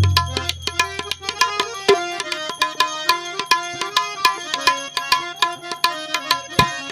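Instrumental interlude of a santvani bhajan: fast tabla strokes under a stepping melody on harmonium. A deep bass stroke of the tabla rings out right at the start.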